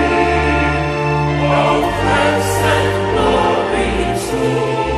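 Four-part SATB choir singing sustained chords, the notes changing every second or so.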